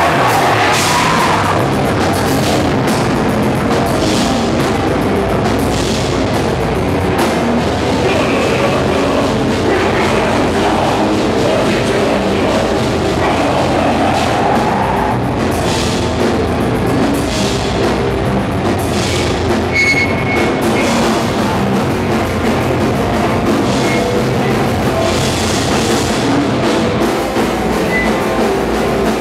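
Heavy metal band playing live: distorted electric guitars, bass and a drum kit, loud and continuous.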